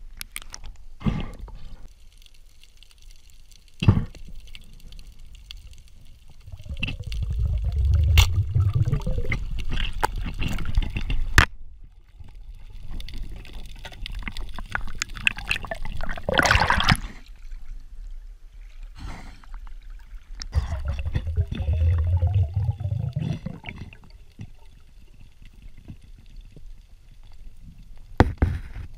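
Water sloshing and gurgling around an underwater action camera, with a low rumble that swells twice and sharp knocks and clicks scattered through.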